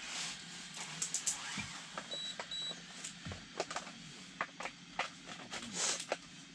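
Irregular sharp clicks and ticks as an electric wakasagi (smelt) reel is worked to jig the line, with two short high beeps about two seconds in.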